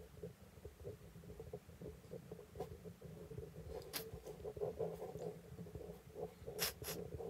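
Cheap ballpoint pen scratching on sketchbook paper in short, quick shading strokes, over a low rumble. Sharp clicks come once about four seconds in and twice in quick succession near the end.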